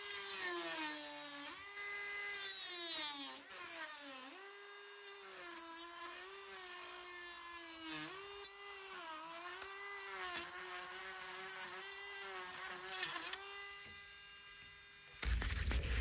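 Dremel rotary tool with a sanding drum whining at high speed. Its pitch dips again and again as the drum is pressed into the fiberglass around a leash plug. It stops about a second before the end.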